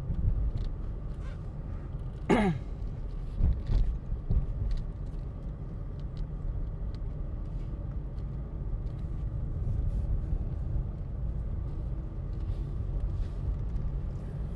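Steady low road and engine rumble inside a moving car's cabin. About two seconds in there is a brief sound that glides downward in pitch, and a few short bumps follow a second or two later.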